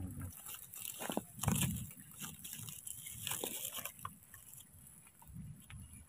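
Irregular rustling and crackling of dry leaf litter being stirred, loudest in a short scuffle about a second and a half in.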